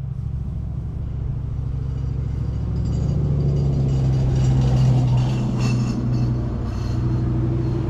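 Low engine hum of a motor vehicle, growing louder to a peak about four to five seconds in and then easing off, with a faint higher whine as it passes.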